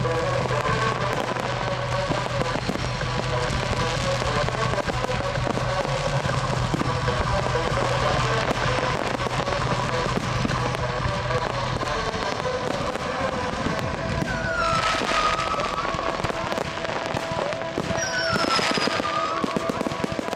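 Fireworks display: continuous crackling and rapid bangs from multi-shot cakes and aerial shells, with a music soundtrack playing over the top. Whistles falling in pitch sound about 15 seconds in and again near the end.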